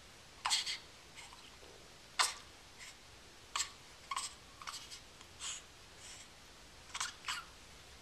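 Six-week-old baby making short, sharp breathy noises at irregular intervals, about one a second, some coming in quick pairs.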